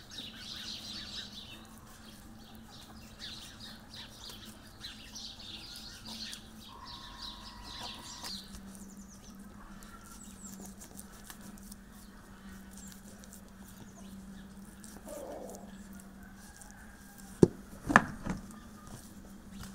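Kitchen knife slicing raw beef on a bamboo cutting board: soft, scattered ticks and scrapes of the blade through the meat. Near the end there are two sharp knocks about half a second apart.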